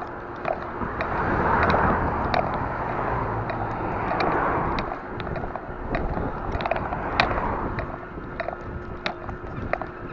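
Riding on a bicycle along a paved road: wind rushing over a handlebar-mounted camera's microphone with tyre and road noise, swelling twice, and frequent small clicks and rattles from the bike and its mount.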